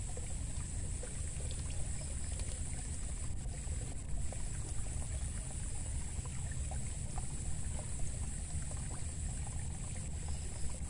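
Steady outdoor background noise beside a small field ditch: a low rumble with a constant high-pitched hiss above it, and a few faint small ticks.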